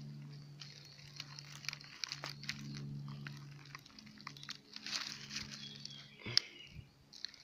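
Dry fallen leaves and grass crackling and rustling in irregular small clicks as a hand grips a porcino mushroom and pulls it out of the leaf litter, with a low steady hum underneath through the first half.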